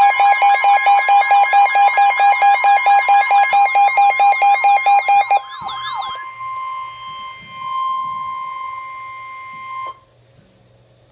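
Emergency alert tones: a rapidly pulsing, buzzy electronic alarm plays over a steady single-pitched tone and cuts off about five seconds in. The steady tone, the NOAA Weather Radio warning alarm tone that precedes a National Weather Service warning, carries on alone and stops about ten seconds in.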